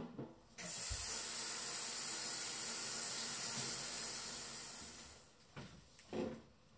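Water sprayed from a mist spray bottle: one steady hiss lasting about four seconds, fading out. Near the end, plastic grocery bags rustle.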